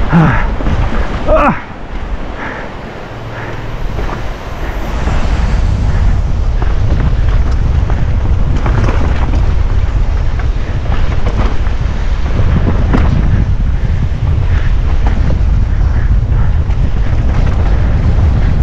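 Wind buffeting a GoPro action camera's microphone while a mountain bike runs down a rough trail, with scattered knocks and rattles from the bike over the ground. A brief wavering tone comes in the first second and a half, and the wind eases for a few seconds after it.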